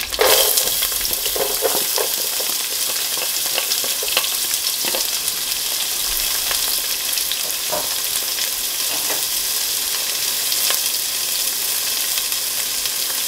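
Chopped small onions (shallots) hitting hot vegetable oil with green chillies in a pot: a sudden burst of sizzling as they go in, then a steady frying sizzle with scattered pops and crackles.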